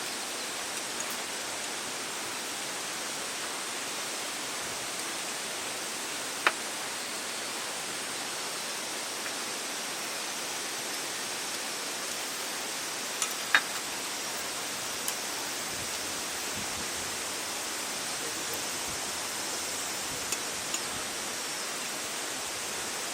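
Steady, even rushing noise with a few brief sharp clicks scattered through it.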